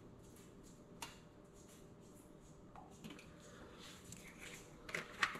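Quiet kitchen handling while cooking oil is poured into a frying pan: a soft click about a second in, faint scraping a few seconds later, and a couple of sharper clicks near the end.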